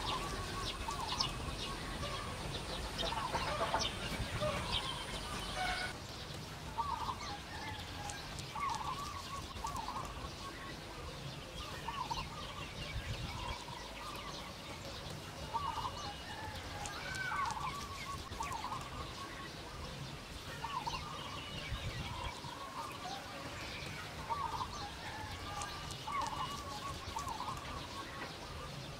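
Fowl clucking: short calls that repeat every second or two.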